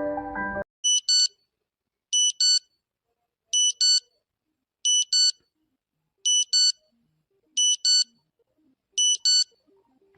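Electronic alarm beeping in pairs: seven double beeps, high-pitched, repeating about every second and a half. A short stretch of mallet-percussion music cuts off about half a second in, just before the beeps start.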